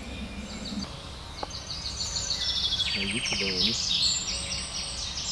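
Woodland birds singing, with several overlapping songs of quickly repeated high notes and trills that grow busier and louder about two seconds in.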